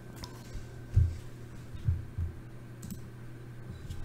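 A few low thumps and faint light clicks of handling at a computer desk, over a steady low electrical hum.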